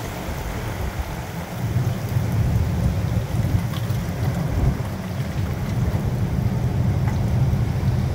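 Hurricane wind gusting outdoors, heard mostly as a low, fluctuating rumble of wind buffeting the phone's microphone, growing stronger about two seconds in, with rain falling beneath it.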